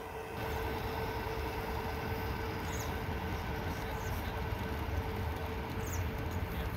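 G-scale model freight train of two-bay coal hoppers rolling past on garden-railway track: a steady rolling rumble with a few light clicks from the wheels.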